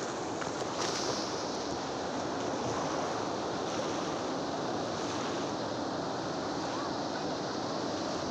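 Ocean surf: large waves breaking on the shore, a steady rushing noise.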